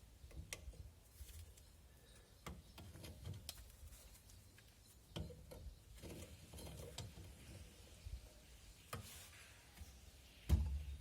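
Parts of a car's rear drum brake being handled by hand: scattered light metallic clicks and knocks, with one louder knock about ten and a half seconds in.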